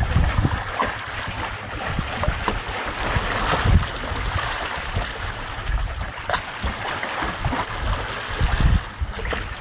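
Rushing water of a shallow stream with small splashes as a puppy wades through it, under a gusty rumble of wind on the microphone.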